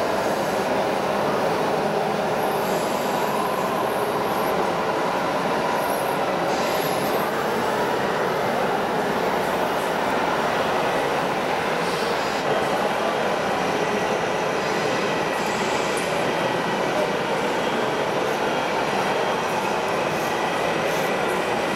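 Steady, even background din of a busy exhibition hall, with no single sound standing out.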